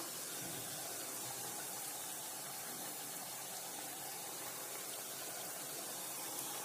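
Hot oil sizzling with a low, steady hiss as semolina puris (golgappe) deep-fry in a kadhai.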